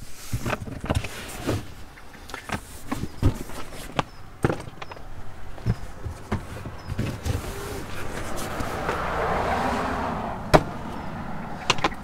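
Luggage being handled and shifted in a car boot: a string of irregular knocks and bumps, a scraping slide from about eight seconds in, and a sharp knock near the end.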